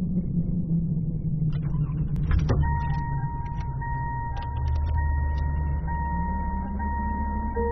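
Car sounds: a steady low engine rumble, a few clicks about two seconds in, then a car's electronic warning chime dinging steadily with a short break about once a second over the idling engine.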